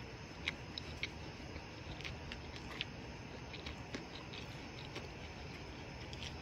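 A person chewing a bite of chicken sandwich: faint, irregular soft clicks from the mouth over a low steady hiss.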